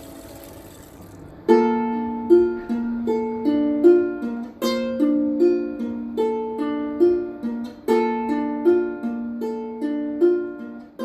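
Instrumental music on a plucked string instrument: a chord fades away, then about a second and a half in, a gentle picked pattern of single notes starts, two or three a second, each note ringing and dying away.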